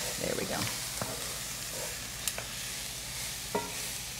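Chopped shiitake mushrooms and water chestnuts sizzling steadily as they sauté in hot oil in a pan, with a few light clicks from a utensil.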